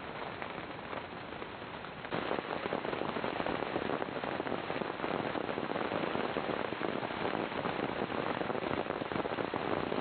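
Falling precipitation pattering steadily and densely on surfaces, getting louder about two seconds in.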